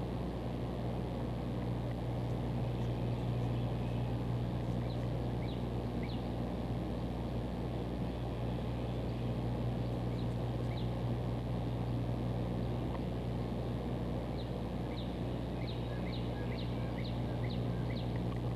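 Steady low hum of city street ambience, with scattered short high chirps that come in a quicker run near the end.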